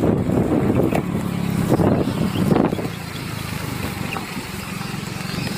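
Motorcycle engine running as it is ridden along, a steady low hum that drops in level about three seconds in.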